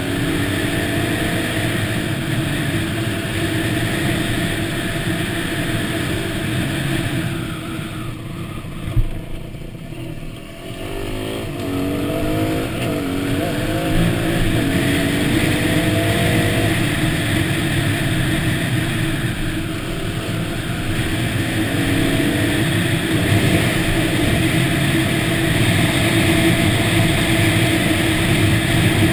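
Yamaha WR250 dirt bike engine running at speed on a dirt trail. About nine seconds in, the throttle comes off briefly with a single knock, then the engine revs back up, rising in pitch, and runs steadily again.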